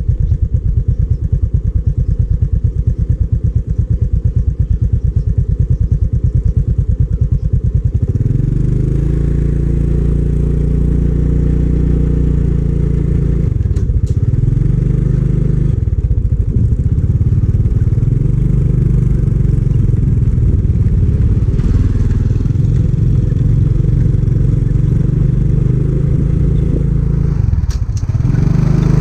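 Motorcycle engine idling with a steady rapid pulse, then revving up about eight seconds in as the bike pulls away and rides on. Its pitch dips briefly three times and climbs again.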